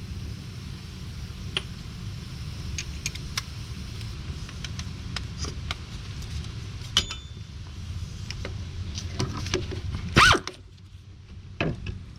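Ratchet and 6-inch extension working out the hub assembly bolts: scattered metallic clicks and clinks over a steady low hum, with a loud metal clatter about ten seconds in, after which the hum stops.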